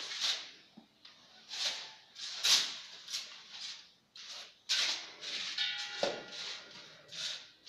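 Insecticide sprayer hissing in short repeated bursts, roughly one a second, as cockroach treatment is applied.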